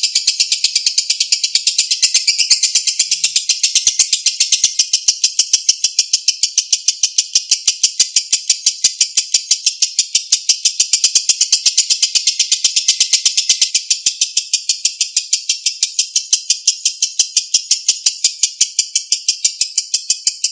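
Lovebird singing a long, unbroken 'ngekek': a rapid, evenly pulsed high-pitched chatter held without pause.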